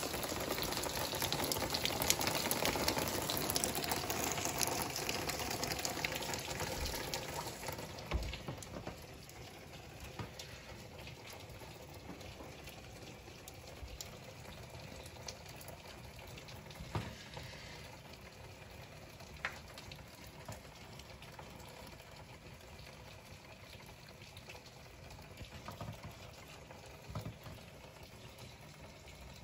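Rainwater pouring down from the house gutters in a heavy downpour, a steady rushing splash. It is louder for the first eight seconds or so, then settles to a quieter steady rain with a few scattered light taps.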